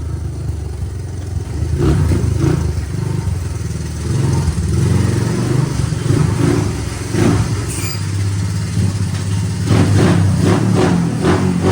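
1981 Honda 185S's single-cylinder four-stroke engine running, blipped several times with short revs, more of them near the end. It runs well with the ignition timing set back to factory.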